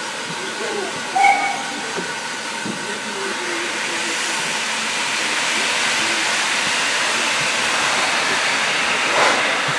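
Steady steam hiss and running noise of a train heard from the carriage, coming from the Hunslet Austerity 0-6-0ST saddle tank locomotive WD132 'Sapper' working ahead, growing a little louder about four seconds in. A short high note sounds about a second in.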